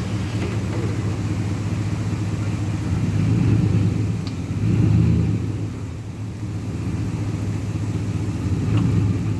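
A truck engine running at low speed while the truck is driven and steered. It swells briefly twice, about three and a half and five seconds in, as it is given more throttle.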